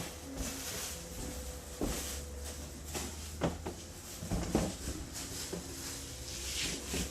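Packaging being handled during unboxing: rustling of cardboard and foam with a few sharp knocks, under a faint steady hum.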